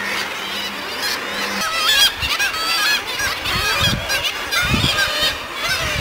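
Seabird colony calling: many overlapping, repeated wavering calls that grow dense about one and a half seconds in, with a few low rumbles.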